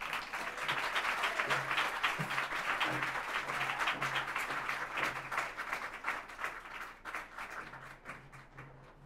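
Audience applauding a speaker's introduction, a dense patter of many hands clapping that dies away over the last few seconds.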